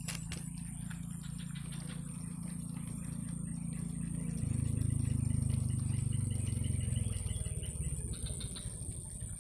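Spinning reel being cranked on a lure retrieve, its gears giving a fast, soft ticking rattle. Underneath is a low rumble that swells about halfway through, and a steady high whine.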